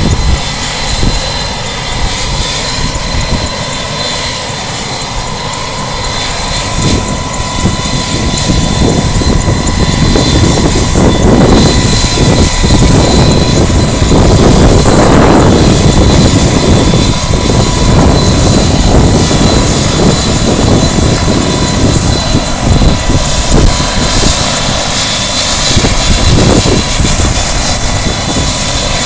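Bell 206B Jet Ranger helicopter running on the ground with its rotor turning: a continuous rotor and turboshaft engine noise with a steady high turbine whine. It grows louder about ten seconds in and stays loud.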